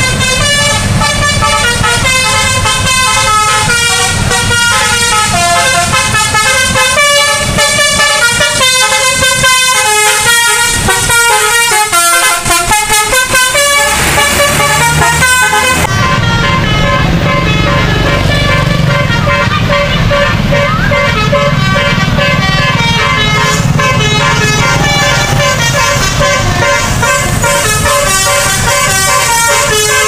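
Telolet bus horns: multi-tone musical horns on tour buses, sounding in quick stepped melodies over bus engine and traffic noise.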